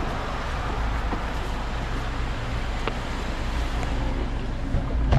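Steady street ambience: a low rumble and hiss of road traffic, with a few faint clicks.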